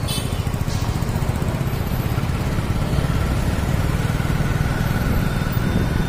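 Engine and road noise of a two-wheeler ridden slowly through town traffic, a steady low rumble with other motorcycles and cars close by. A faint steady whine joins about two seconds in.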